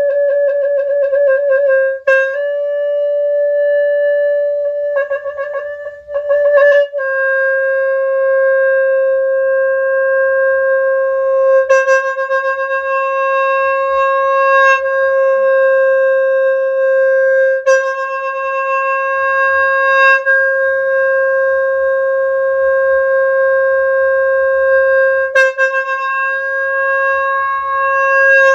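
Khmer horn playing one long reedy note rich in overtones. It warbles in quick trills near the start and again around five to seven seconds in, then holds a steady, slightly swaying note for about twenty seconds with brief accents every few seconds and no pause.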